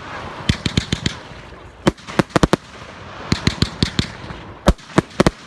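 Night Star Fireworks' Neutron Force firework going off in clusters of sharp bangs and cracks, some in quick runs of several reports.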